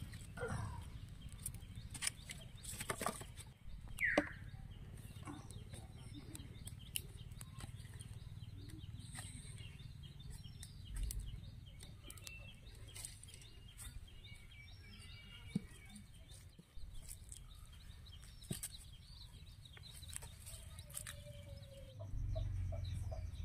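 Chickens clucking and small birds chirping outdoors, with scattered sharp knocks and clicks.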